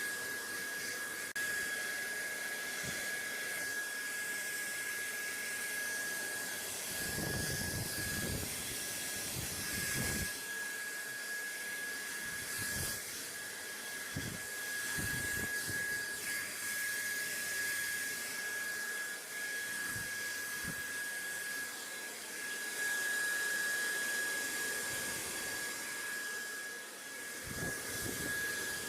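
Steady white-noise hiss, airy and bright like a fan or hair dryer, with a constant high whistle-like tone running through it. A few soft low thuds come in around the middle and near the end.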